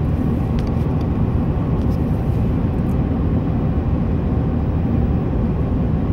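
Steady low rumble of road, tyre and engine noise inside a car's cabin at highway speed, with a few faint clicks in the first few seconds.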